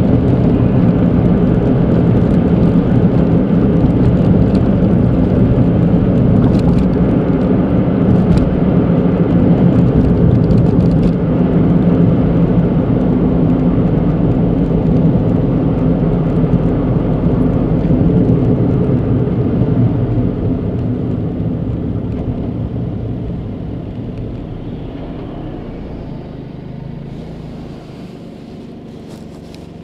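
Cabin noise of a Suzuki Alto Turbo RS (HA36S) on the move, its 660 cc turbocharged three-cylinder engine humming under steady tyre and road noise. Over the last ten seconds the noise fades steadily as the car slows and comes to a stop at a red light.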